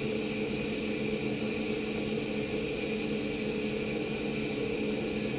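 Veyron three-phase brushless electric fuel pump running on high mode with the engine off, a steady even hum with a hiss, holding about 91 psi of fuel pressure.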